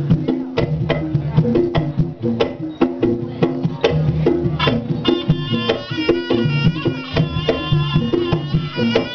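Live Javanese gamelan accompaniment for a kuda kepang dance: kendang hand drums beat a brisk rhythm over gongs and metallophones. About five seconds in, a shrill reed pipe joins with a wavering melody.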